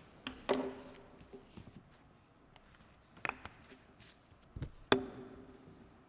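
A few knocks and taps on a wooden lectern as a pen and a document folder are put down and handled close to the microphone, each of the three louder knocks followed by a short ringing tone.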